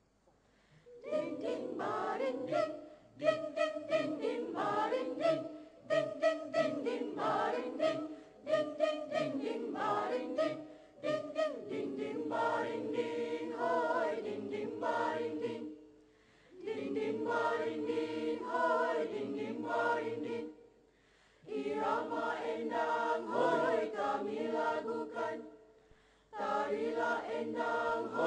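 Mixed choir of men's and women's voices singing together, starting about a second in and going in phrases with short pauses between them.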